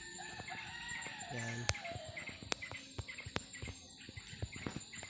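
A rooster crowing once, a single long crow that rises and then falls away about two seconds in. Steady high insect trilling runs underneath, with a few sharp clicks.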